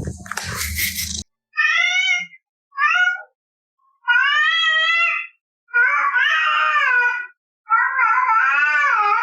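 A cat meowing: five separate meows, the later ones longer and wavering in pitch. A brief noisy rustle comes first, in the opening second.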